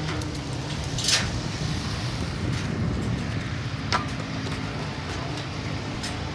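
A vehicle engine idling steadily, with two sharp clicks, about a second in and again near four seconds.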